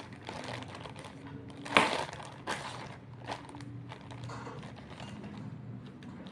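Parcel packaging being handled and opened: irregular crinkling and rustling, with one sharp louder crackle nearly two seconds in.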